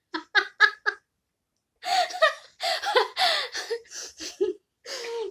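A woman laughing: a quick run of short "ha" pulses, then after a brief pause longer breathy bursts of laughter.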